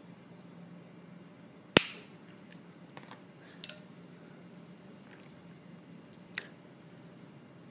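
Sharp clicks and taps of small cosmetic items and their packaging being handled and set down: one loud click a little under two seconds in, a double click near the middle and another clear click near the end, over a faint low hum.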